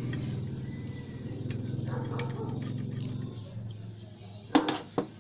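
A steady low engine-like hum that fades away over the first four seconds, then two sharp clicks about half a second apart near the end as parts on the picture tube's neck are handled.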